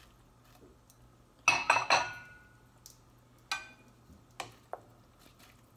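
White ceramic dishes clinking as they are set down on a gas stovetop beside a stainless steel pot. There are several sharp, ringing clinks about a second and a half in, another about three and a half seconds in, then two lighter knocks.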